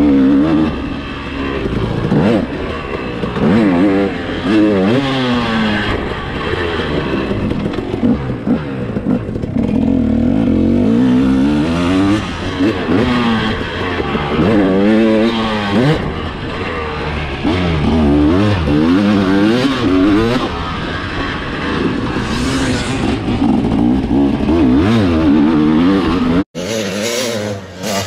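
Motocross dirt bike engine revving up and dropping back again and again as it is ridden hard around the track, heard close up from on the bike. Near the end the sound cuts abruptly to the bike heard from beside the track.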